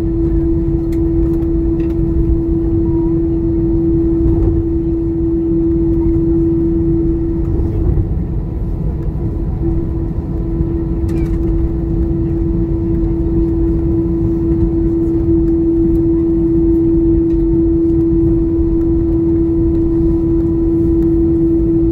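Airbus A321's jet engines at idle heard inside the cabin during taxi: a steady hum with one constant tone over a low rumble.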